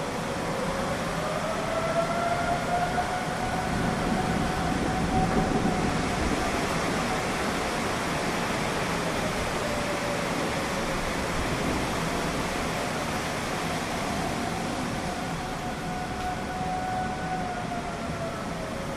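Federal Signal 2001-130 rotating outdoor warning siren wailing for a tornado warning. Its single tone slowly swells and rises in pitch, then sinks and fades as the horn turns, over a steady rushing background noise.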